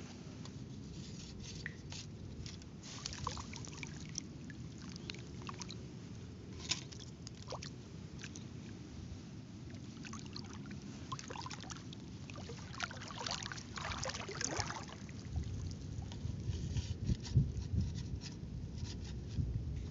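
Water trickling and sloshing, with scattered small splashes and clicks over a steady low rumble; the rumble grows louder over the last few seconds.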